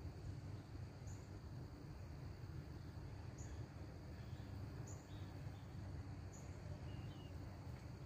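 Outdoor ambience of insects and birds: a steady high insect drone, a short high chirp repeating about every second and a half, and a few fainter chirps near the end, over a low steady rumble.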